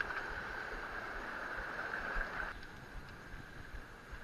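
River water rushing over rocks in a steady hiss, dropping suddenly to a quieter wash about two and a half seconds in.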